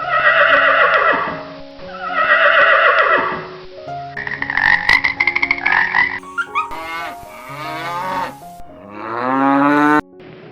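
A string of different animal calls over background music: two similar harsh calls, then a run of rapid pulsing calls, then sweeping and rising pitched calls.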